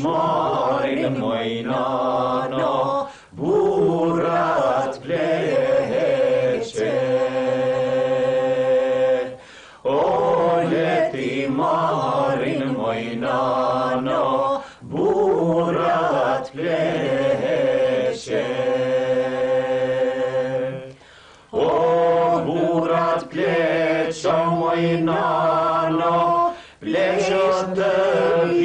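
Albanian folk song sung in long, drawn-out held notes, in phrases a few seconds long separated by short breaks for breath.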